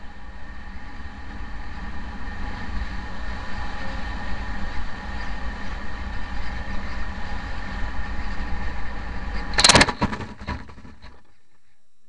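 Steady rush of airflow over the onboard camera of a rocket-powered model Me-163 Komet, with a steady whine underneath. Nearly ten seconds in comes a loud crunch and a few scraping hits as it lands on the grass and slides to a stop, then the noise drops away.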